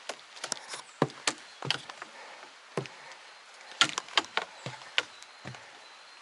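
A hiker's footsteps on a mountain trail: irregular sharp knocks and scuffs of boots striking the ground, a few a second, some louder than others.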